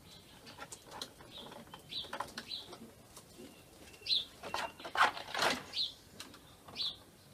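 Domestic pigeons flapping their wings, a burst of flutters loudest about four to six seconds in, with short high bird chirps every second or so.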